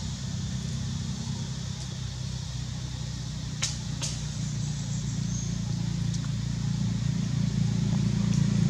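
Steady low hum of a running engine that grows slowly louder, with two sharp clicks about three and a half and four seconds in.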